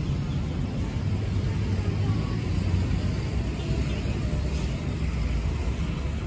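Steady low rumble of street traffic with no single event standing out.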